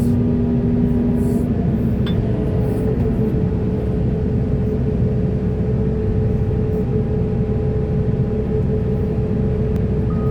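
Diesel engine of heavy earthmoving machinery running steadily, a dense low rumble with a held whine over it. A reversing alarm's beep starts right at the end.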